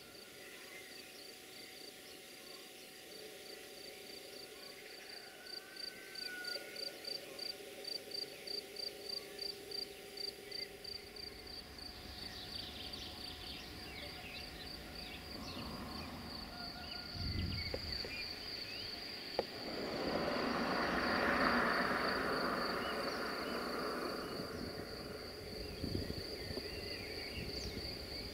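Insect chirping at a high pitch, in evenly spaced pulses for the first ten seconds or so, then as a continuous trill. Faint bird calls come and go, and a broad rushing noise swells up about twenty seconds in and then fades.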